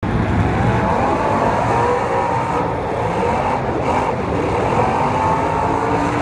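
Several racing engines running together at speed, their overlapping pitches slowly rising and falling as the cars circle the track.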